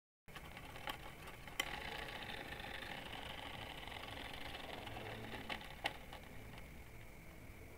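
Small propeller of a rubber-band-powered foam model plane whirring as its wound rubber motor unwinds, fading slowly, with a couple of sharp clicks.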